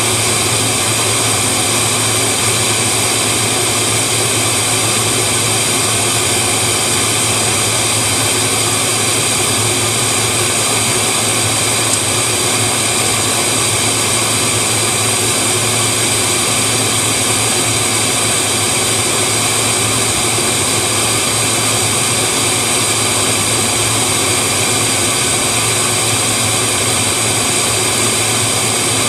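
Submerged arc welding rig running, with its flux recovery vacuum drawing up the loose flux behind the weld: a steady whine and hiss over a low hum.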